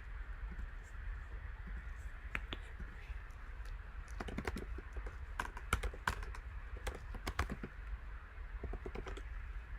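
Typing on a computer keyboard: irregular clicking of keys in short runs, over a low steady hum.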